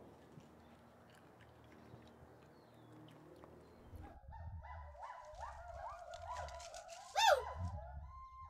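Gibbons calling: a run of rising whooping notes, several a second, that starts about halfway in and builds to one loud, high sweeping whoop near the end, over a low rumble. The first half is faint background only.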